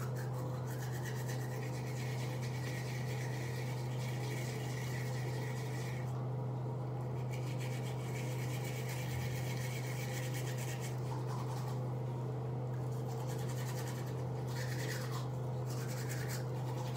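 Toothbrush scrubbing teeth in quick back-and-forth rasping strokes, over a steady low hum.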